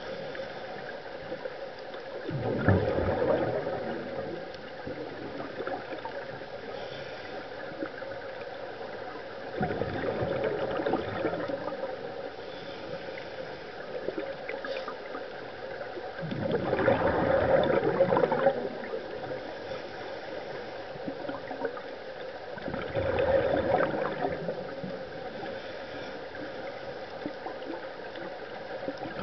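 Scuba regulator exhaust bubbles heard underwater: four bursts of gurgling bubbles, each about two seconds long and six to seven seconds apart, the rhythm of a diver's breathing. A steady low hiss runs between the bursts.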